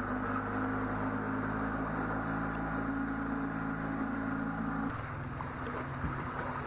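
A boat engine running with a steady low drone, which cuts off abruptly about five seconds in, leaving the rushing of wind and water.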